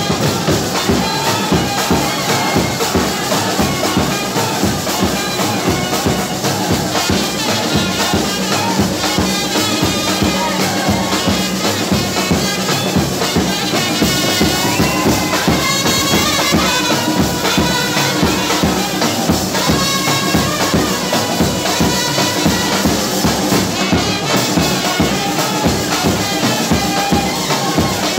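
Brass band playing: trumpets carrying a tune over a steady, dense beat of large bass drums and side drums.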